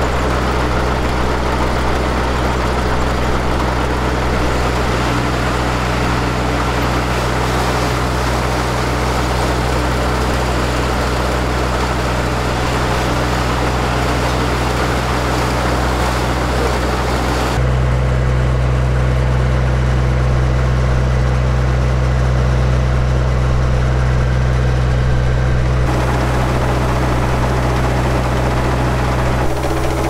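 Kubota ARN320 combine harvester's diesel engine and threshing machinery running steadily under load as rice is fed in. At about 18 s the sound turns to a deeper hum with less hiss, and it changes back near 26 s.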